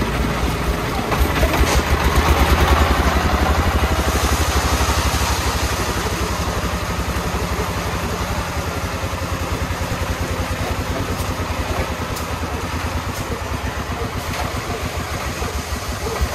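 Single-cylinder diesel engine of a công nông three-wheeled truck running with a fast, even chugging. It grows louder about two seconds in, then slowly eases off.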